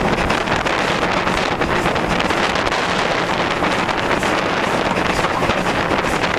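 Steady wind rush buffeting the microphone, held out from the cab of an Ivatt steam locomotive running along the line, with the locomotive's running noise underneath.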